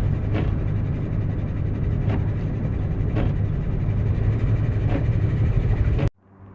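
A steady low engine rumble, like a vehicle idling, that cuts off abruptly about six seconds in, leaving a much quieter steady hum.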